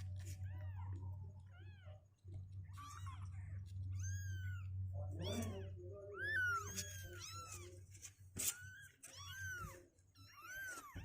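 Two-week-old kittens mewing over and over in short, high-pitched, rising-and-falling cries, several at once in places. A steady low hum runs underneath.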